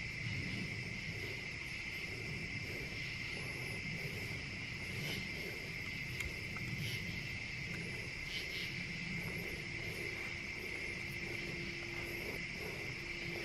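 Crickets trilling in a steady night chorus, a continuous high-pitched drone, over a soft low rustle. A faint low hum joins about ten seconds in.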